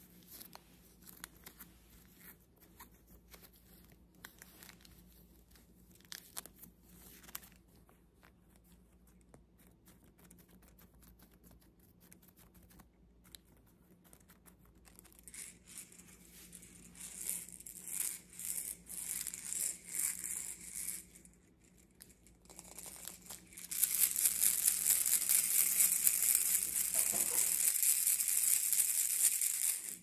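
Baby rattle with beads inside a clear plastic ring: soft, scattered handling clicks and scratches at first, then the beads rattle in short bursts from about halfway through, and over the last six seconds they are shaken hard and continuously, a loud, dense, bright rattle that cuts off at the end.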